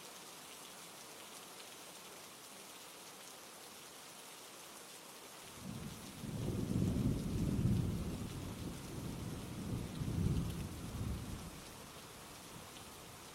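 Steady rain falling, with a long low roll of thunder starting about five seconds in, swelling twice and fading out near the end.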